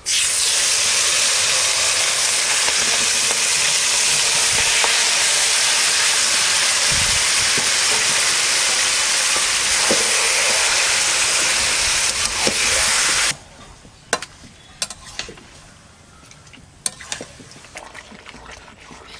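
Yogurt-marinated chicken pieces sizzling loudly as they go into hot mustard oil in a kadai and are stirred. The sizzle cuts off suddenly about 13 seconds in, and a few sharp clicks of the metal spatula against the pan follow.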